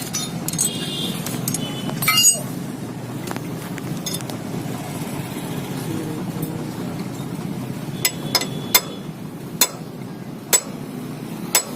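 Sharp metallic clinks of hand tools on a Hero Splendor Plus motorcycle being taken apart: one about two seconds in and a scattered handful near the end, over a steady low background hum.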